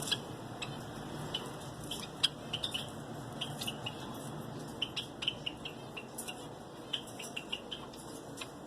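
Small caged finches chirping: many short, high calls at irregular intervals over a faint steady hiss.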